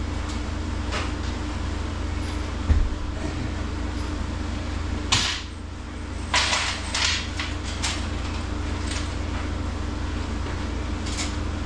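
Scattered knocks and clatters of hardware and tools being handled during assembly work, the loudest a single low thump a few seconds in, over a steady low machine hum.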